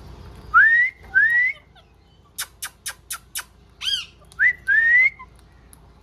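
Green parrot whistling: short rising whistles, two near the start and two near the end. Between them come a quick run of five sharp clicks and one arched, squawky call.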